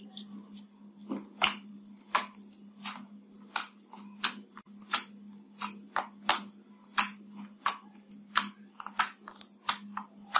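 Green glitter slime pressed and poked by fingers, giving a string of sharp clicking pops about every three-quarters of a second, coming quicker near the end.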